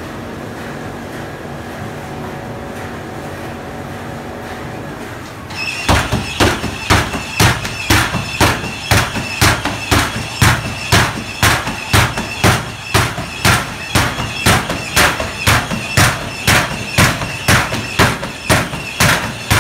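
Steady mechanical hum of the running tea steaming drum machines, then, about six seconds in, a motor-driven machine whirling a cloth bag of tea leaves starts up: a sharp knock with a short high squeak, about two a second.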